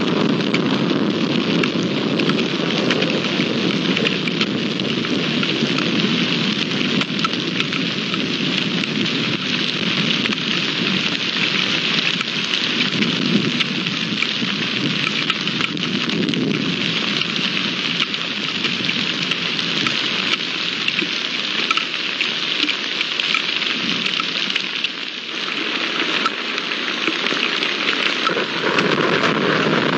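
Steady heavy rain falling on open ground and puddles, a continuous loud hiss of drops. It eases briefly about five seconds before the end, then picks up again.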